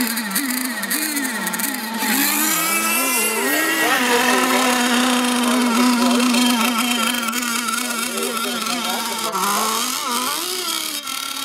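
Model racing boat engines revving up and down for about four seconds. Then one engine holds a steady high speed for several seconds, and the revving resumes near the end.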